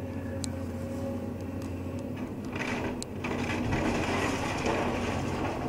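Hyundai 180LC-7 excavator's diesel engine running steadily while its demolition grapple tears into a timber house. Splintering boards and falling debris crack and clatter, getting heavier from about two and a half seconds in.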